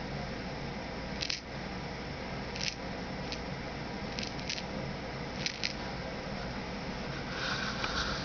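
Small scattered clicks and ticks from a stained-glass kaleidoscope image wheel turned by hand, the glass chips, beads and jewels inside it tumbling as it turns, over a steady low hum. A brief scraping rustle near the end.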